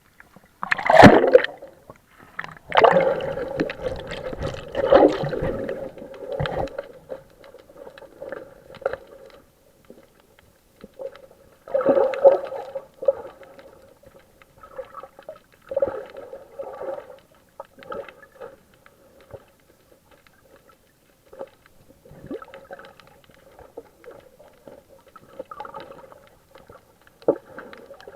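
Underwater water sounds: gurgling and bubbling that comes in uneven bursts, strongest in the first few seconds, over a faint steady hum.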